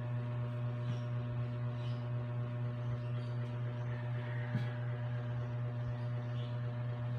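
Steady electrical hum: a constant low drone with a ladder of evenly spaced overtones above it, and a few faint ticks.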